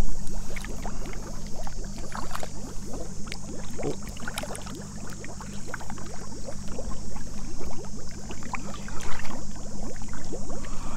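Lake water sloshing and splashing in many small irregular splashes and drips as a large carp is lifted and held in chest-deep water, with a steady high hiss behind it.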